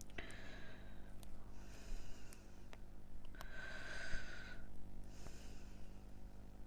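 A person breathing out audibly four times, the third a longer sigh, with a few faint small clicks between the breaths.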